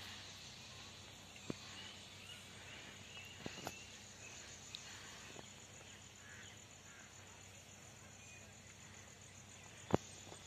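Faint outdoor background noise with insects, broken by a few sharp clicks.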